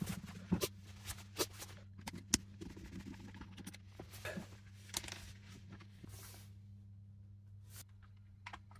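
Faint scattered clicks and light knocks of a Dremel 8260's hard plastic housing being handled and set on a wooden bench, over a steady low hum. The clicks thin out after about six seconds.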